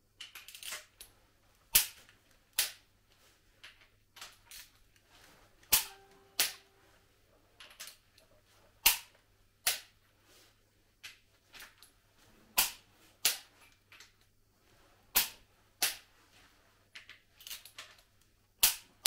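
Click-type torque wrench tightening the cylinder head bolts of a Volvo D67C diesel in sequence: sharp clicks, mostly in pairs about three seconds apart, with lighter ratchet ticks between.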